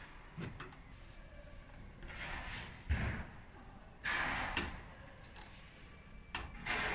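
Handling noises while working on a machine: a few sharp knocks and clicks, three short scraping or sliding sounds, and a heavier thump about three seconds in.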